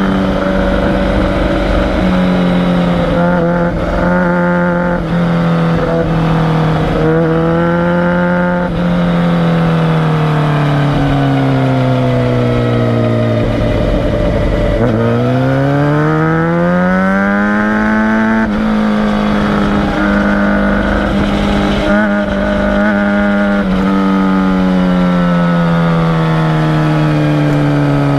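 Suzuki GSX-R750's inline-four engine running hard through a series of bends. A few short blips come in the first third. The engine note then falls over several seconds as the bike slows into a corner, and climbs sharply as it accelerates out.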